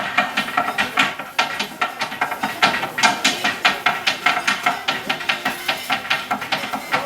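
Knives chopping candy on a cutting board in a fast, steady drumming rhythm, several sharp chops a second.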